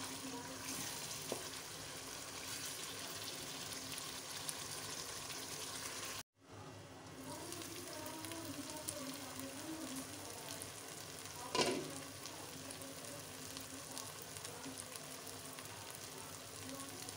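Chicken karahi sizzling and frying in its oil in a wok during the bhunai, cooked down over a medium flame and stirred with a wooden spatula, with a fine crackle throughout. The sound drops out for a moment about six seconds in, and a single knock comes about two-thirds of the way through.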